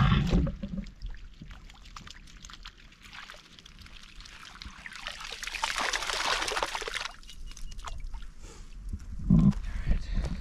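Dam water sloshing and splashing as an open-top lift net is dipped and shaken to tip yabbies back out, swelling to its loudest a little past the middle. A few thuds near the end, like footsteps on stony ground.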